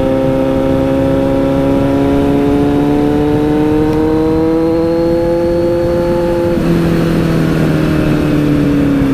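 Kawasaki Z900's inline-four engine running under load, its pitch climbing slowly and steadily; about seven seconds in the tone changes and then sags slightly.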